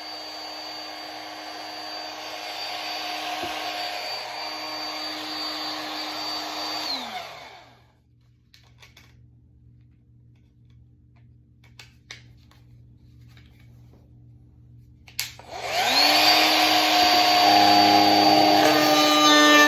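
Electric sander running with a steady whine, then spinning down about seven seconds in. After a quiet stretch with a few faint knocks it starts again and comes up to speed near the end.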